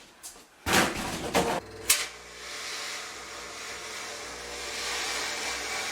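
A short loud burst of noise about a second in and a sharp click, then a steady hiss starts and holds: a fog machine blowing fog into the room.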